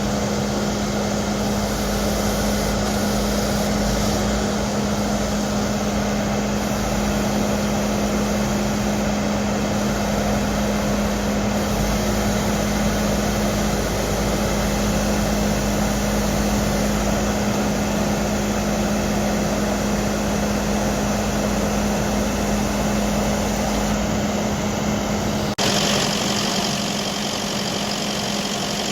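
Bobcat T770 compact track loader's diesel engine running steadily, with a constant hum over a low rumble. The sound changes abruptly about 25 seconds in, with more hiss and less low rumble.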